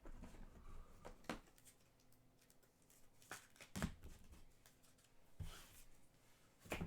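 Faint clicks and rustles of trading cards being handled and flipped through: about half a dozen sharp taps spread unevenly, the loudest near the middle and right at the end.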